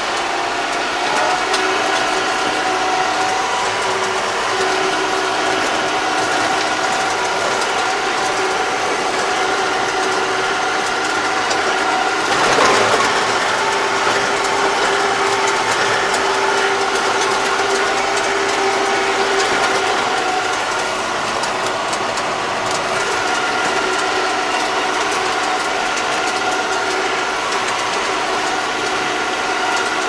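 Yanmar tractor's diesel engine and drivetrain running at a steady travelling speed, heard from inside the cab, with a steady whine and constant mechanical rattling. A brief louder jolt comes about twelve and a half seconds in.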